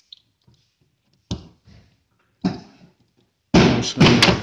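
Knocks and thuds from a plastic wheel-arch fender liner being worked loose with a screwdriver: two separate knocks, then a louder run of knocking and scraping near the end.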